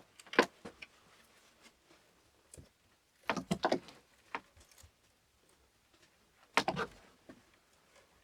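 Knocks and clatters in three short clusters, about three seconds apart.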